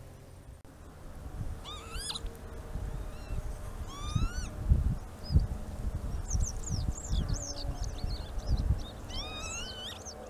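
Northern lapwings calling in flight: slurred, rising 'pee-wit' calls, two single calls in the first half, then a quick run of overlapping calls in the second half. Low, gusty wind rumble on the microphone underneath.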